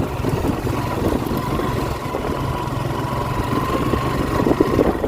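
Suzuki GSX-R150 motorcycle engine running steadily at low revs, riding over a rough unpaved track.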